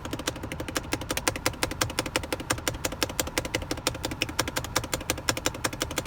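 Rapid, continuous tapping clicks, several a second, from a finger hammering the VW Golf SportWagen's push-button start switch, which only responds after many presses; the owner suspects the start button is bad. The engine idles steadily underneath.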